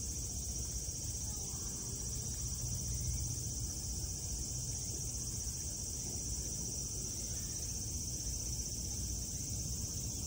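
Steady chorus of insects such as crickets, a continuous high-pitched shrill, over a low background rumble.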